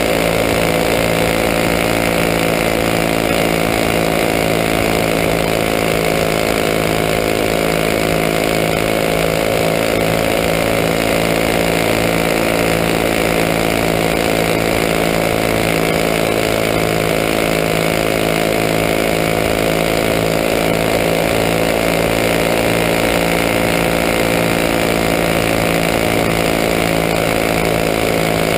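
Winged champ kart's small racing engine running hard at high, nearly steady revs, heard from the camera mounted on the kart itself.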